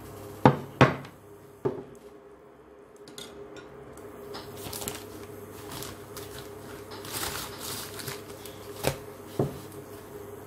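Chopsticks and a small bowl knocking against a hot pot and dishes: a few sharp clicks about half a second and a second in, two more near the end, and softer clatter between, over a steady low hum.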